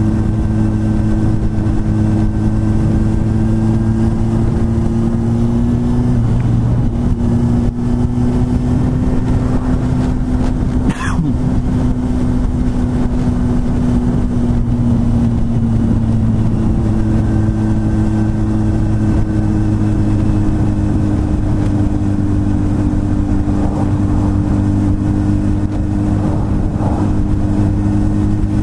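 Honda 919's inline-four engine running at a steady cruise through its stock exhaust, its note holding an even pitch with only slight dips and rises. A brief faint tick about eleven seconds in.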